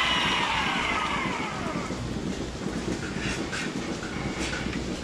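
Rotary milking parlour running with a steady mechanical rumble. The hiss and falling whine of a handheld teat sprayer die away over the first two seconds. From about three seconds in, a series of short clacks follows as the platform rolls on.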